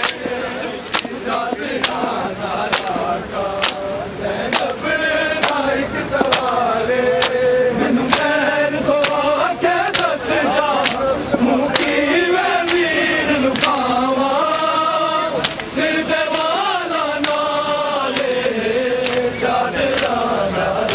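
A crowd of men chanting a noha in unison, with the slap of many hands striking bare chests in matam landing together about once a second.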